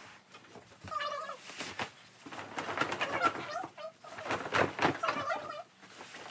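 Sped-up audio of children's voices raised to a squeaky, chipmunk-like pitch, with quick bursts of rustling bedding as a fitted sheet is thrown over and pulled onto a mattress.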